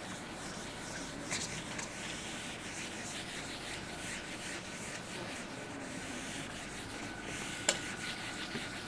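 Quiet writing strokes of a pen or marker rubbing across a writing surface, with a sharp tap about three-quarters of the way in.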